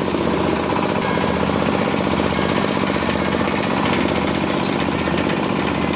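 Oil palm frond chopper running with its belt-driven rotor shredding a palm frond into chips, a steady, dense, rapid clatter.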